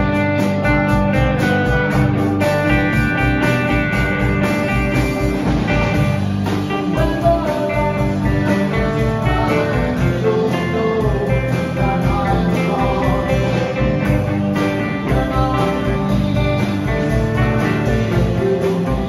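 Live band playing a rock/country tune: two amplified acoustic guitars over a drum kit, with a steady beat of kick-drum thumps.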